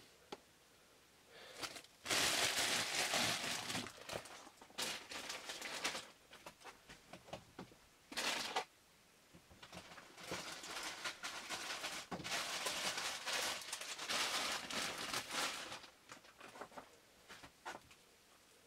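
Dry crackly rustling and crinkling in several bursts of one to several seconds, with short pauses between them: hands breaking up and handling dry moss for an enclosure.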